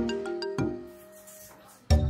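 Background music: a run of short pitched notes that thins out and grows quieter about half a second in, then a louder new phrase with a deep bass note starts suddenly just before the end.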